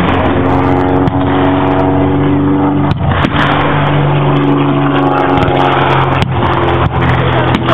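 A vehicle engine runs steadily and loudly, its pitch shifting about five seconds in. Several sharp cracks of blank gunfire from the mock battle cut through it, four or so.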